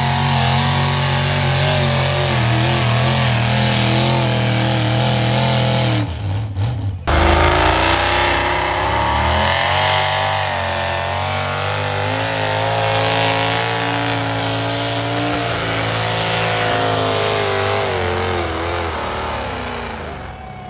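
Competition pulling tractor engine running hard at high revs under load while dragging a weight-transfer sled. The sound breaks off about six seconds in and comes back abruptly. The engine note then rises and wavers, and falls away near the end as the engine throttles down.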